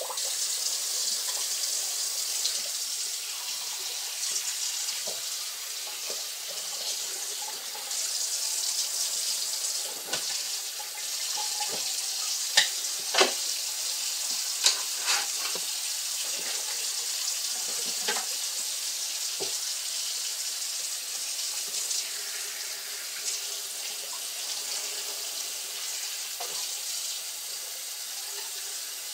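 Kitchen tap running a steady stream of cold water into the sink over packaged chicken thighs to loosen them, with a few sharp knocks and clinks from handling partway through.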